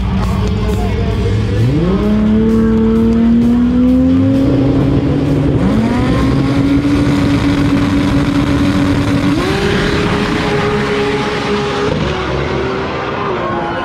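Drag racing car's engine held at the starting line, its revs climbing in steps, then launching hard about nine seconds in and pulling away down the strip.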